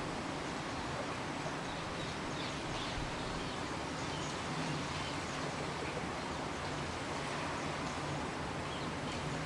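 Light drizzle falling: a steady hiss of rain with faint scattered drop ticks.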